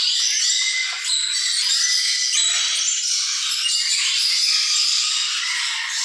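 A continuous din of many small caged birds chirping and chattering at once, all high-pitched with no low sounds.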